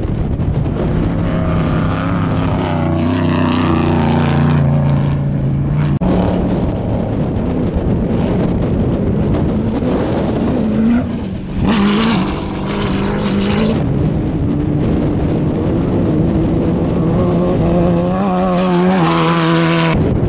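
Off-road race trucks and buggies passing one after another, their engines revving hard with pitch that climbs and drops. About halfway through, a loud rushing noise lasts roughly two seconds.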